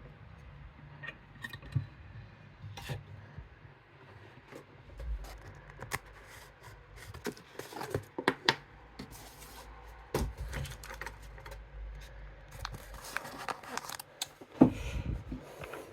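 Small metallic clicks and scrapes of lock picks and a tension tool working the pins of a Medeco M3 lock cylinder, with a louder knock near the end.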